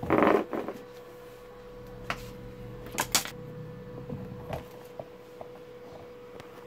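Handling of a CRT TV's circuit board as it is turned over: a loud noisy rustle at the start, then a few sharp clicks and knocks, over a steady faint hum.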